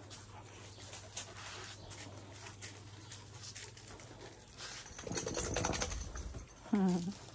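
A Kangal dog shaking its whole coat, a flapping rattle of fur and ears lasting about a second and a half, a little past the middle. Faint ticks of claws and steps come before it, and a short voice sounds just after.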